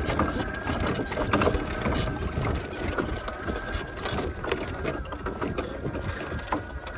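Electric riding lawn mower towing a homemade log cultipacker over bare dirt: a steady high motor whine under many irregular clicks and rattles from the towed wooden frame and log.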